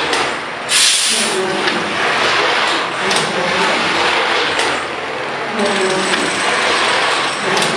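CNC machine running a test program from an offline controller: a steady dense mechanical noise, with a brief louder hiss about a second in.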